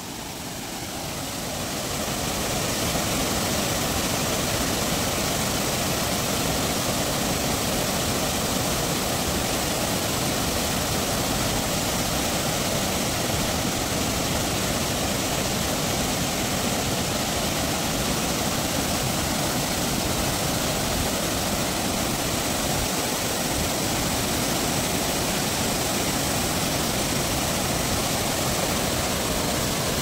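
A waterfall in spate: a heavy flow of muddy water rushing steadily down broad stepped rock ledges, the sound of water at high flow. It fades in over the first couple of seconds, then holds level.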